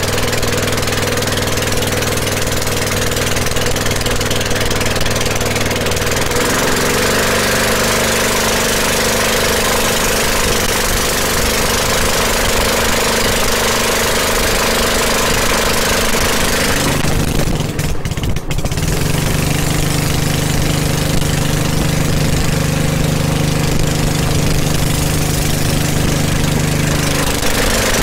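Small 6.5 HP boat engine running steadily, driving a wooden skiff along under way. Its note changes about six seconds in and again around seventeen seconds, with a brief dip around eighteen seconds.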